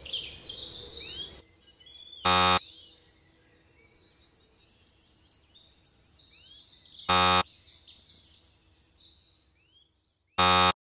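Birds chirping and singing, broken three times by a short, loud buzzing tone of about a quarter second, about two seconds in, about seven seconds in and near the end. The birdsong drops away just before the last tone.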